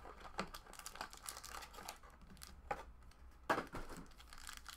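A cardboard trading-card box being torn open by hand, with the wrapper around the cards crinkling: scattered rustles and short rips, the sharpest about three and a half seconds in.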